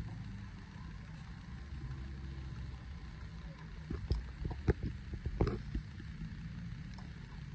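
Dual-motor standing-desk frame's lift motors humming steadily as the legs move, with a few sharp clicks and knocks about four to five and a half seconds in.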